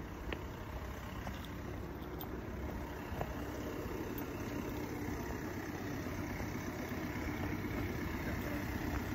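Steady low rumble of a vehicle running, heard from inside, growing slightly louder.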